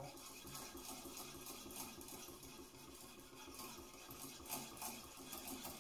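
Faint, soft rasping of a knife tip being stroked back and forth over a wet 5000-grit whetstone, the fine polishing stage.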